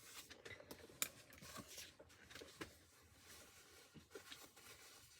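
Near silence: room tone with a few faint clicks, the sharpest about a second in.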